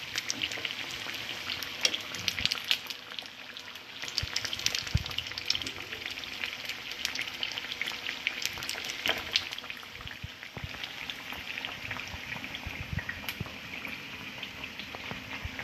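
Gram-flour-battered potato cutlets (aloo tikki) deep-frying in hot oil: a steady sizzle full of small crackles and pops.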